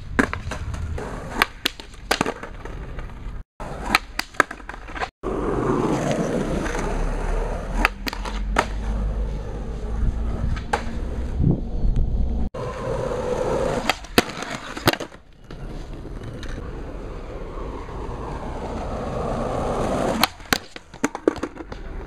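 Skateboard rolling on a paved path, its wheels rumbling, with repeated sharp clacks of the tail popping and the board landing and hitting the ground. The sound drops out briefly a few times where short clips are cut together.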